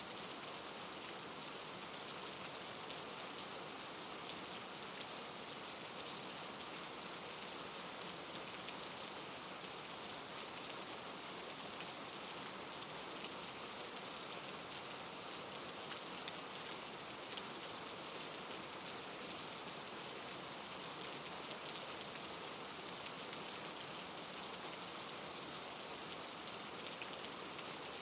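Steady soft rain falling, an even hiss with many small drop ticks spattering on a surface.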